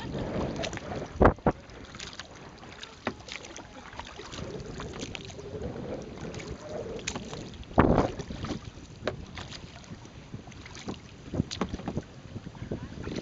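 Kayak on the water: paddle strokes and water splashing against the hull, with wind buffeting the microphone and a few sharper hits, the loudest about a second in and again near eight seconds in.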